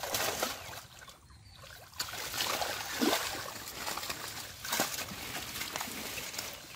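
Shallow muddy water splashing and sloshing as live fish are handled and lifted out by hand, with a few sharper splashes.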